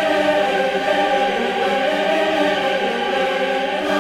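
Background music: a choir singing long held notes.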